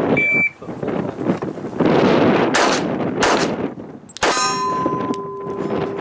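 A short, high electronic beep from a shot timer, then about four seconds in a single pistol shot followed by a ringing clang that hangs on for about two seconds. Wind buffets the microphone throughout.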